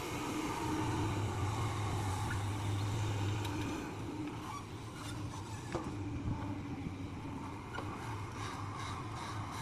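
Excavator's diesel engine running steadily, with a few sharp knocks partway through.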